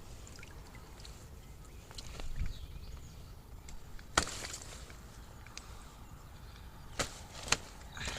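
Water dripping and splashing as a carp is lifted out of the lake, with three sharp knocks, one about halfway through and two close together near the end.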